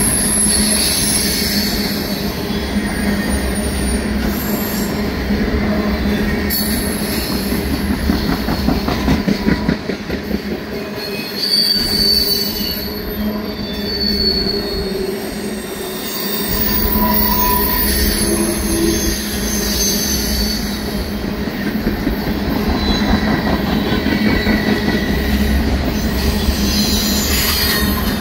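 Loaded oil train of tank cars rolling past at close range: a loud, steady rumble of wheels on rail, with high-pitched wheel squeals coming and going.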